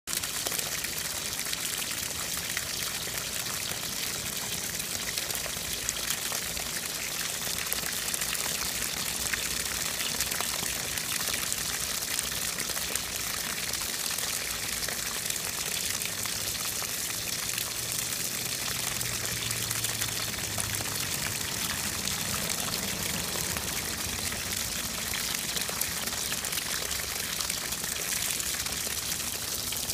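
Steady stream of water from an outdoor spigot pouring and splashing onto a box turtle's shell and the wet ground around it.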